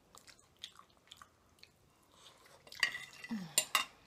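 Metal forks clinking and scraping on ceramic plates as spaghetti is eaten, with soft mouth sounds of eating. Several sharper clinks come about three seconds in, along with a brief hum of a voice.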